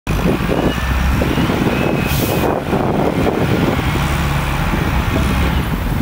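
Wind buffeting the microphone in gusts, over the low running of a front-end loader's engine, with a brief hissy gust about two seconds in.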